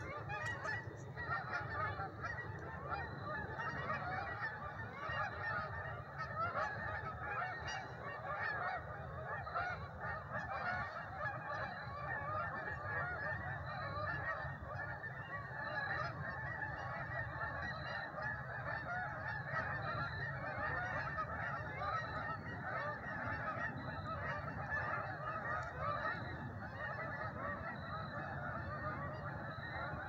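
A large flock of geese honking on the wing, many calls overlapping into a continuous clamour that holds steady throughout.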